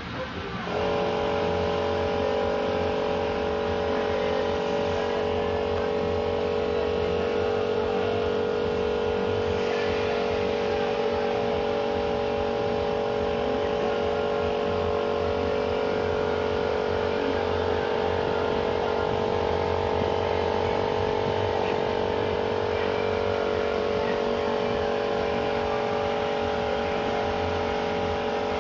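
Car-wash pressure washer starting up about half a second in, then running with a steady whine.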